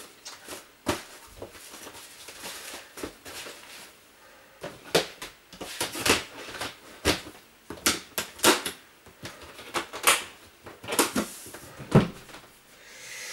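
Irregular knocks, clicks and rustles of small household objects being handled and set down, with a few sharper knocks standing out.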